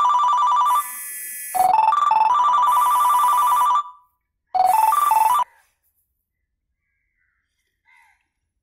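A phone ringtone playing a short rising run of notes and then a fast warbling trill, over and over, cutting off partway through a round about five and a half seconds in.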